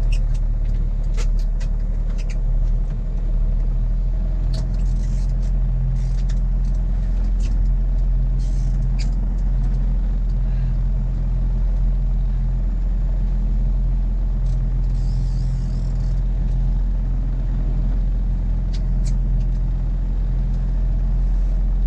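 Boat engine running steadily with an even low drone, with a few light clicks and knocks over it and a brief hiss about fifteen seconds in.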